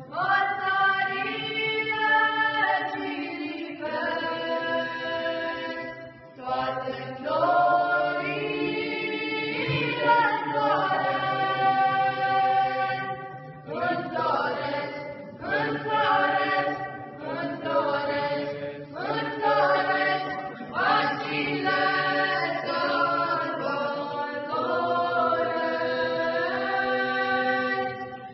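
Children's and youth choir singing an Easter hymn a cappella, several voices together, held notes in phrases with short breaks between them.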